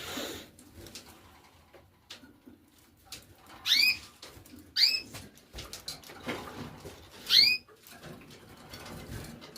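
Canary giving three short upslurred call notes, two about a second apart and a third after a longer gap, with faint clicks and rustling between them.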